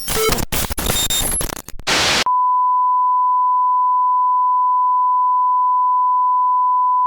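About two seconds of harsh static with brief dropouts, then a steady, unwavering high test tone held for about five seconds: the off-air tone of a broadcast that has signed off.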